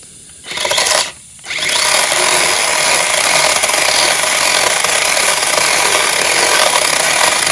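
Makita electric chainsaw cutting through wood: a short burst of the chain, a brief pause, then a steady cut of about six seconds.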